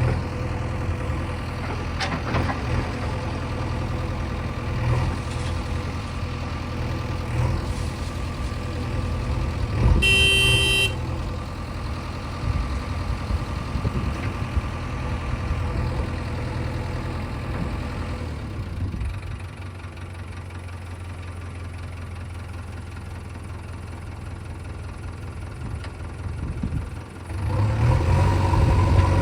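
Diesel engine of a JCB 3DX backhoe loader running while it loads a dump truck, with a short vehicle horn sounding about ten seconds in. The engine drops back to a lower level about two-thirds of the way through, then revs up louder near the end.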